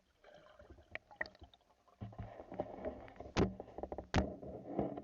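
Water splashing and sloshing close to the microphone, with several sharp knocks, the loudest two a little under a second apart late on.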